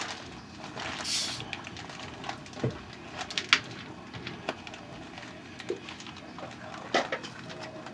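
Light kitchen handling noises: scattered small clicks and knocks of containers and utensils being set down and moved, with a short rustling hiss about a second in.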